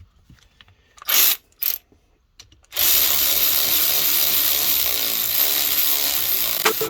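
Tool noise from work on the cylinder base bolts: two short bursts, then a steady rasping mechanical noise that runs on for about four seconds.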